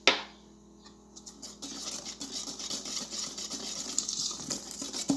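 A sharp knock right at the start, then sugar poured into a stainless steel mixing bowl of cake batter, a steady gritty hiss from about a second and a half in.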